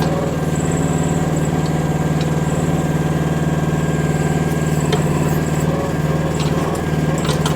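Micro excavator engine running steadily under working load while the machine digs out a tree stump, with a few faint clicks and knocks over it.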